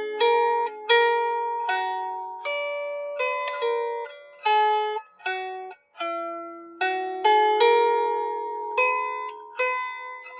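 Lyre harp being played: a slow melody of single plucked notes, each ringing on and fading before the next.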